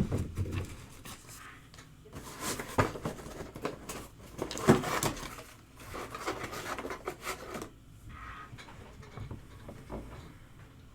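Trading cards and their packaging being handled on a table: rustling, sliding and light knocks in uneven bursts, with a sharp click at the start.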